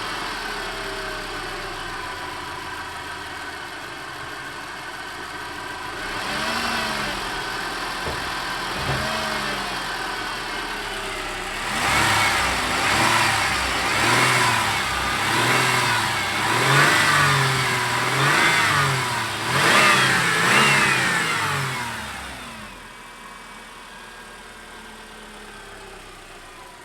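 Car engine idling and being revved: a few single blips of the throttle, then a run of about eight quick revs one after another in the middle, settling back to a quieter idle near the end. The owner is unsure whether the engine has a knock.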